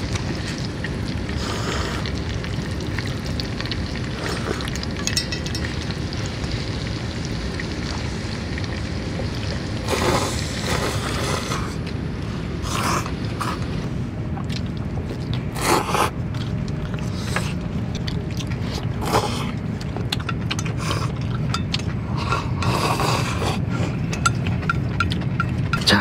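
People eating noodles: short slurps and utensil scrapes against steel bowls, over a steady low rumble.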